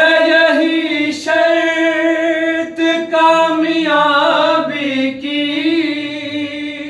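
Unaccompanied male voice singing a long held, drawn-out note of a manqabat (Urdu devotional recitation), the pitch wavering in ornamented turns in the middle. A fainter, lower male voice sings underneath for a few seconds midway, and the note fades out near the end.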